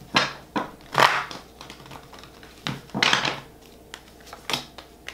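Tarot cards handled on a table: a series of irregular short taps and slides as cards are laid down and moved, about eight in five seconds.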